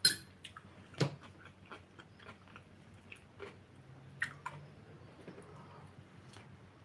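Light clinks of a table knife against ceramic dishes, with quiet chewing and biting as someone eats; the sharpest clink comes about a second in.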